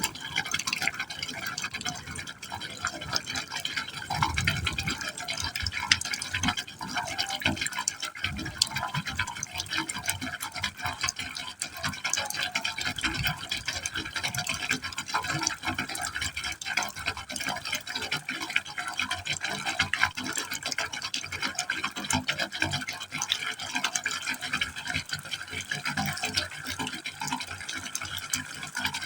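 Water falling into a pipe hole: a steady stream splashing and gurgling, with a continuous fluttering patter of small splashes.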